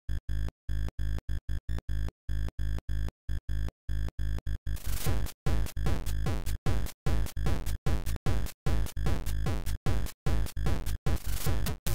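ZX Spectrum chiptune music: short staccato square-wave notes separated by silent gaps. About five seconds in, a beat of falling-pitch drum hits joins and the music gets louder.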